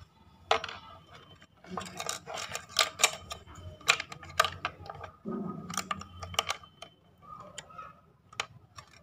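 Hard plastic clicking and tapping as the battery compartment cover is pushed and fitted into place on the back of a plastic digital bathroom scale: a string of sharp, uneven clicks.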